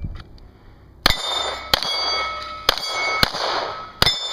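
Pistol fired five times in about three seconds at steel plates, starting about a second in; each hit is followed by the ringing clang of the struck steel. The shot timer's start beep ends right at the beginning.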